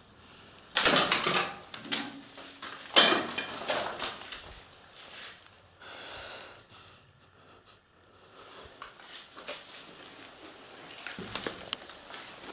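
Metal clanking and scraping at a floor hatch with a metal grating as someone climbs down into an underground cistern. Two loud clatters come in the first three seconds, then quieter scuffing and rustling, with small knocks near the end.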